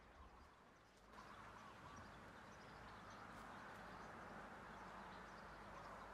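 Faint outdoor ambience: a soft steady hiss with scattered faint bird chirps, growing a little louder about a second in.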